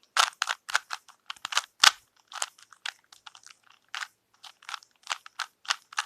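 Plastic Rubik's Cube being turned quickly by hand: an irregular, fast run of clicks and clacks as its layers are twisted round.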